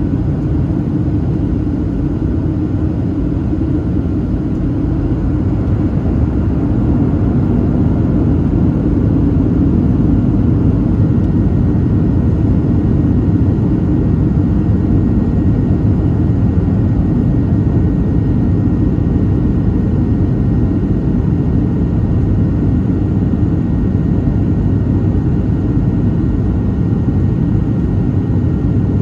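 Cabin noise inside a Boeing 737-700 on approach: the steady low rumble of its CFM56-7B engines and rushing airflow past the fuselage, with a faint steady whine above it. The rumble grows slightly louder about six seconds in.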